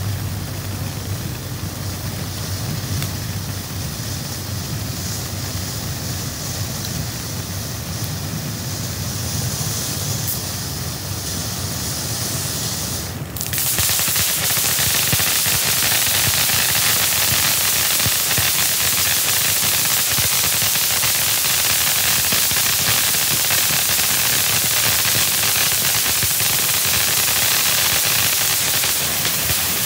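Black Cat Wild Card 500-gram firework fountain spraying sparks with a steady hiss. About thirteen seconds in it changes abruptly to a louder, brighter hiss that holds to the end.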